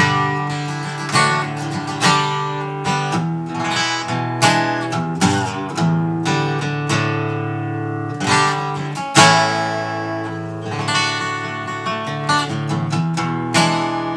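Acoustic guitar played alone, strummed chords in a steady rhythm as the instrumental start of a song.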